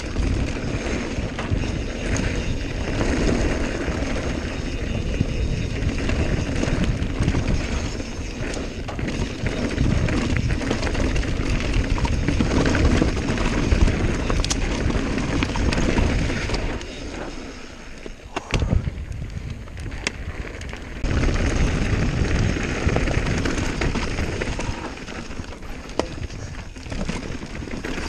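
Wind buffeting a helmet- or chest-mounted action camera's microphone as a Santa Cruz Nomad full-suspension mountain bike rolls fast down dirt singletrack, with tyre crunch and scattered knocks and rattles from the bike over rough ground. It goes quieter for a few seconds past the middle, then picks up again.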